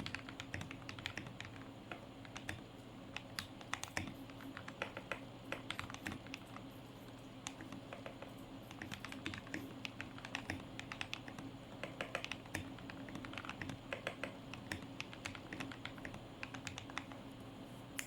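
Continuous typing on a modded mechanical keyboard with lubed Akko CS Matcha Green linear switches and doubleshot PBT keycaps, dampened by PE foam, tape, Holee and sandwich-foam mods: a quick, irregular run of key clicks.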